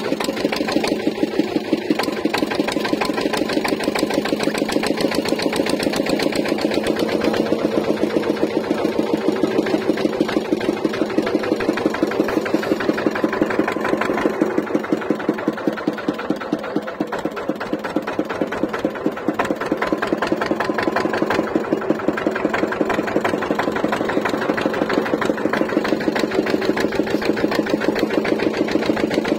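Boat engine running steadily with a fast, even beat.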